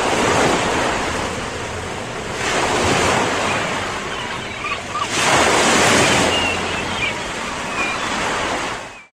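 Ocean surf breaking on a shore, the wash swelling and falling back every two to three seconds, with a few faint short chirps; it cuts off suddenly at the end.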